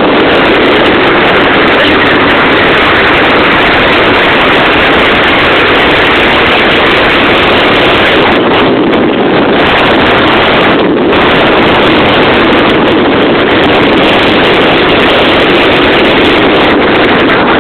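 Motorcycle engine running loud and steady during a wheelie stunt, heavily distorted on the microphone, with wind buffeting it.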